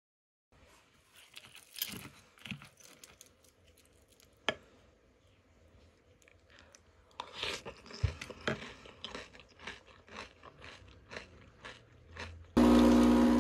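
A spoon scraping and crunching through a bowl of cornflakes and granola in milk, with irregular crunches and a few sharp clinks of the spoon against the ceramic bowl. Near the end, a capsule coffee machine's pump starts with a sudden, loud, steady hum.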